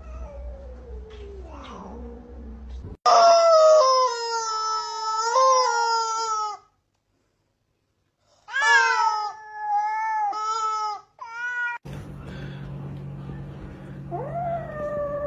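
Cats yowling and meowing: a faint falling meow at first, a loud drawn-out yowl from about three seconds in, then after a short silence three or four shorter meows, and near the end another falling meow.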